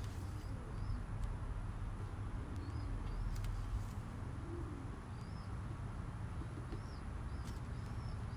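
Backyard ambience over a steady low rumble: small birds give short high chirps every second or so, and a pigeon coos faintly around the middle. A few light plastic clicks come from the supplement bottle and its measuring cap being handled.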